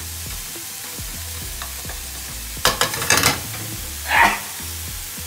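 Chopped chillies, spring onions, garlic, ginger and lemongrass sizzling in oil in a non-stick frying pan on high heat, stirred with a plastic spatula, with a quick run of sharp clacks of the spatula against the pan about three seconds in. Near the end the cook sneezes once, briefly, from the chilli fumes.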